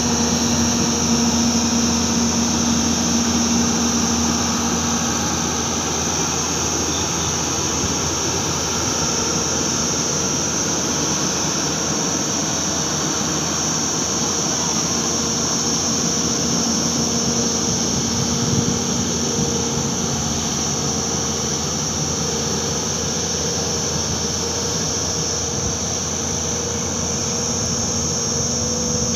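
Hyundai crawler excavator's diesel engine running steadily under hydraulic load as the machine slews round on the truck's flatbed, with a steady high-pitched whine over it.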